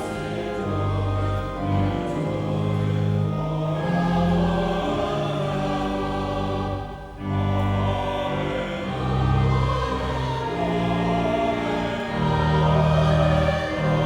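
Church choir singing with sustained instrumental accompaniment, with a brief pause between phrases about seven seconds in.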